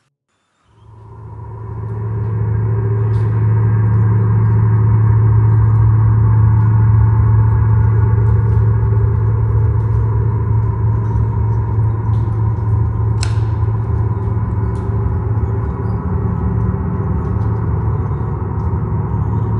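A low, steady drone with a ringing, gong-like tone fades in about a second in and holds, with faint scattered clicks over it and one sharper click about two-thirds through.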